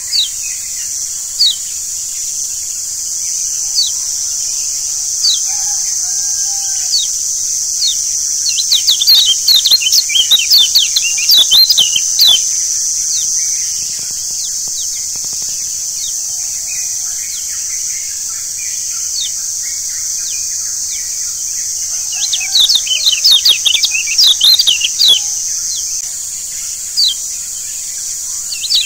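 Lombok yellow white-eyes (kecial kuning) singing in rapid bursts of quick, high rising chirps, the bursts coming and going, over a steady high-pitched hiss.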